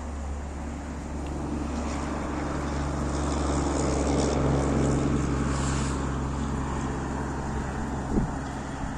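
Motor-vehicle engine hum that grows louder to a peak midway and then fades, as of a car going by. A brief knock comes near the end.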